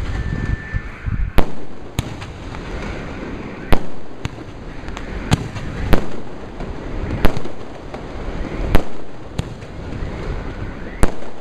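Aerial firework shells bursting overhead: a sharp bang about every one and a half seconds, each followed by a brief rumble, with smaller cracks in between.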